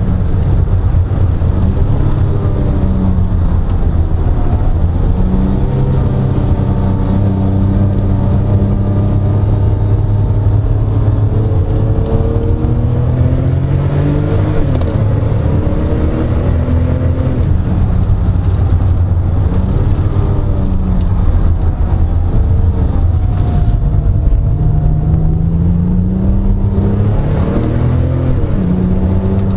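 Porsche 997 Turbo's twin-turbo flat-six heard from inside the cabin while lapping a track at speed, the engine note climbing with the revs and dropping back several times at gear changes and braking.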